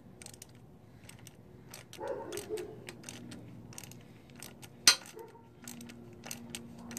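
A socket on a long extension tightening a worm-gear hose clamp on an oil-cooler hose: a run of irregular small metallic clicks and ticks as the tool turns, with one sharp, much louder click about five seconds in.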